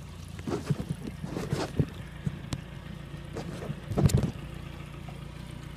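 Yamaha 60 hp outboard motor running with a steady low hum, with scattered knocks and rattles on the boat and a louder clatter about four seconds in.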